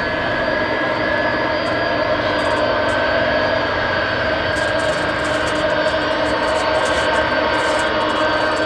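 Boeing 747 jet engines running loud and steady, a whine of several held tones over a rushing roar.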